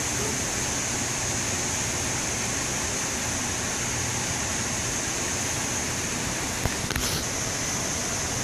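Steady rushing noise of ocean surf breaking, with a couple of short clicks near the end.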